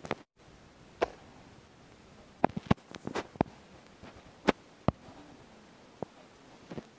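About ten short, sharp taps and clicks scattered irregularly, a quick cluster of them a little past halfway, over faint steady hiss: fingertips tapping a phone's touchscreen, picked up by the phone's own microphone.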